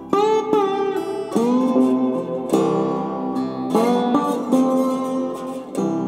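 Background music: a plucked, guitar-like string instrument playing chords, a new chord struck about every second, each sliding up into pitch.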